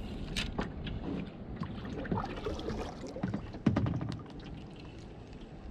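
Small knocks and clicks of a fishing rod and reel being handled against a plastic kayak, over water lapping at the hull; the loudest knock comes a little over three and a half seconds in.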